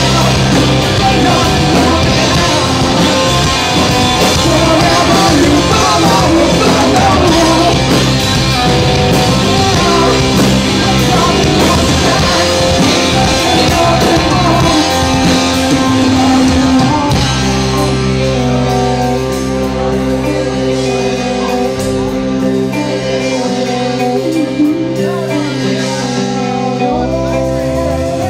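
Live rock band playing with singing over guitar and drum kit. About two thirds of the way through, the drums drop away and the band holds long, steady chords.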